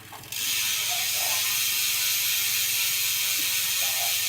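BMX rear hub freewheeling as the new wheel spins, its pawls ratcheting so fast they merge into a steady, even buzz that starts about a third of a second in.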